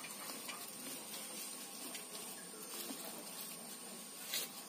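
Faint scratchy rubbing of a cotton cloth soaked in hot water, wiping corrosion off the positive terminal of a lead-acid inverter battery, with a single click about four seconds in.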